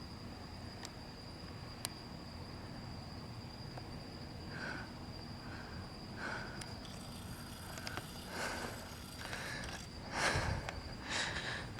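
Quiet night air with a thin, steady, high insect trill, and soft, short footstep-like shuffles starting about halfway through, the loudest about ten seconds in.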